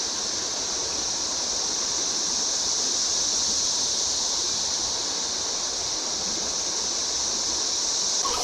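Steady high-pitched drone of a cicada chorus over the constant rush of creek water.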